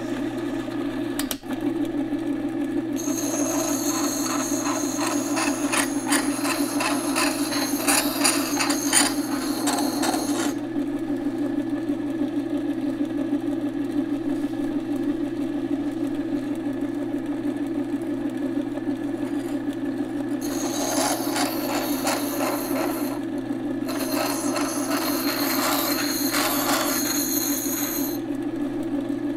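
Craftsman Utility Sharpener's electric motor humming steadily, with three spells of steel grinding against its stone wheel as a chipper blade is held to it: a long one of about seven seconds starting a few seconds in, then two shorter ones near the end.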